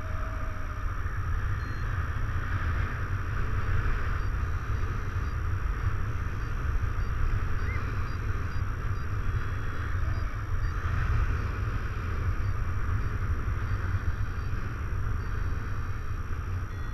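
Wind rushing over the camera microphone in flight under a paraglider: a steady low rumble with a hiss that swells and eases every few seconds.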